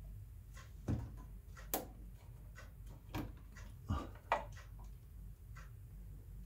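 Irregular light clicks and knocks of plastic reverse-osmosis fittings and tubing being handled, about a dozen over several seconds, the sharpest just under two seconds in, over a low steady hum.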